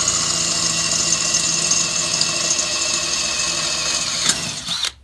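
DeWalt brushless cordless drill running steadily as its bit bores a pilot hole through 1/8-inch stainless steel plate; the motor cuts off sharply just before the end.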